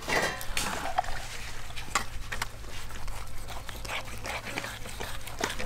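Kitchen knife slicing through the skin and meat of a cooked pig's head on a wooden chopping block, with scattered small clicks and knocks of the blade.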